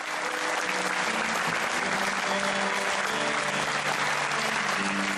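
Theatre audience applauding as the cast bow at the curtain call, the clapping swelling up at the start and holding steady. Music with long held notes plays under the applause.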